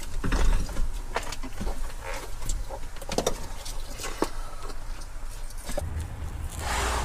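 Scattered, irregular clicks and knocks of a compact diesel air heater and its fittings being handled and lifted out of a compartment, with a brief rush of noise near the end.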